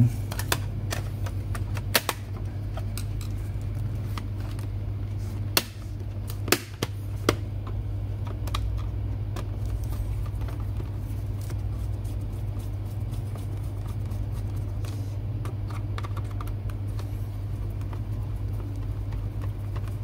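Scattered sharp clicks and taps as a laptop's plastic bottom access cover is set in place and its small screws are turned in with a hand screwdriver, over a steady low hum.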